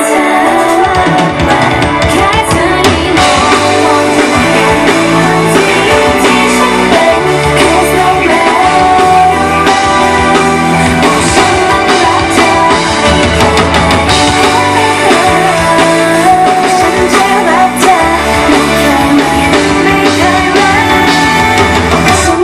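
Live pop-rock song played by a band, with drums, bass and guitar, and a voice singing over it.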